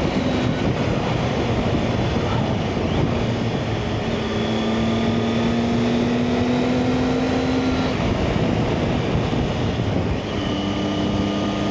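Motorcycle engine running at road speed under heavy wind rush on the helmet camera microphone. The engine note climbs slowly from about four seconds in, drops away around eight seconds, and picks up again near the end as the bike accelerates.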